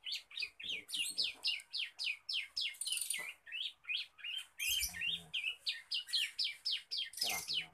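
Young male bar-winged prinia (ciblek) singing a fast, continuous run of short, high, downward-sweeping notes, about five a second: the rapid 'ngeriwik' chatter of a young male learning its song.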